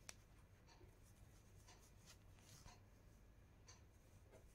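Near silence, with faint rustles and scratches of knitted yarn fabric being handled while a seam is sewn by hand, and a small click just after the start.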